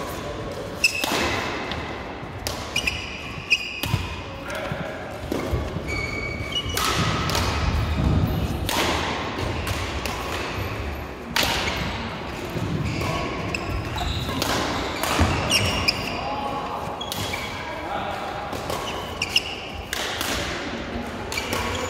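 Badminton doubles rally in a large echoing hall: sharp racket strikes on the shuttlecock at irregular intervals and short squeaks of shoes on the court mat, with voices chatting in the background.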